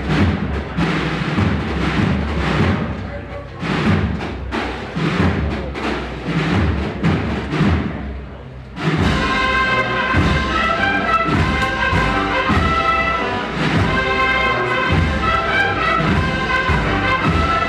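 Procession band: drums beating a steady march rhythm on their own, then after a brief pause about nine seconds in, brass strikes up a march over the drums.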